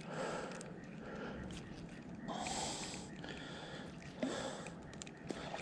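Faint breathing close to the microphone: a few soft breaths and exhales, the strongest a little past two seconds in, with a short knock about four seconds in.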